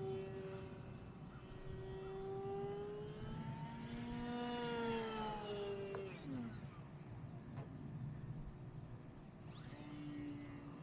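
Electric RC plane's motor and propeller whining in flight, the pitch shifting with the throttle. The whine swells about four seconds in and drops steeply in pitch around six seconds, as the plane passes by.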